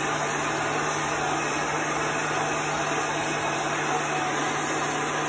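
Industrial heat gun running steadily, its fan blowing hot air to dry ink: an even rush of air over a constant low hum.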